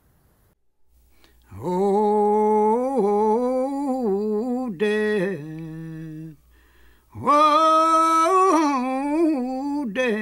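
Unaccompanied solo voice singing a slow melody with long held notes, in two phrases with a brief pause about six seconds in.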